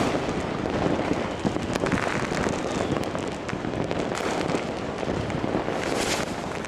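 Fireworks and firecrackers going off all over a city at once, a dense, unbroken crackle of pops and distant bangs, with a brighter crackling burst near the end.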